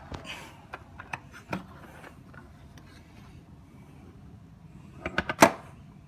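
Plastic clicks from handling a Hoover HushTone upright vacuum, its motor off, as its bag compartment cover is unlatched and opened. Scattered single clicks come first, then a quick cluster of sharp clicks about five seconds in, the last the loudest.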